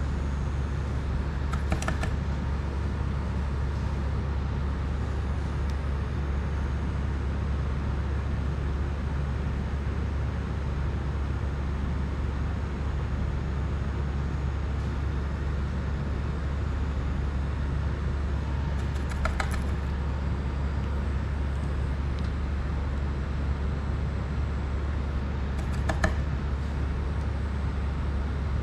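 Steady low background hum, with three light clicks: about two seconds in, about two-thirds through, and near the end.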